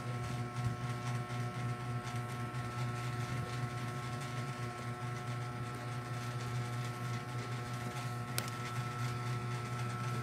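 Steady low machine hum with several constant tones, and one sharp click about eight seconds in.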